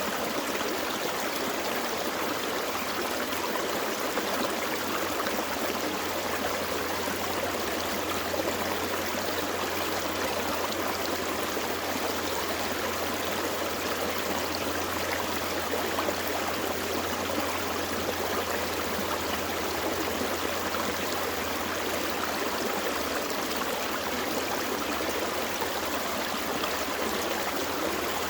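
Small forest creek flowing, its water running and gurgling over rocks in a steady, unbroken rush.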